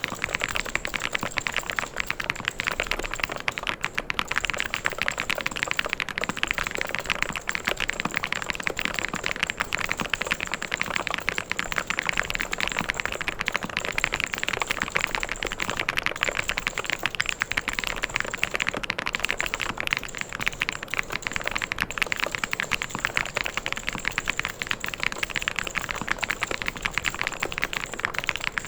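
Continuous typing on a mechanical keyboard: a dense, unbroken stream of key clacks.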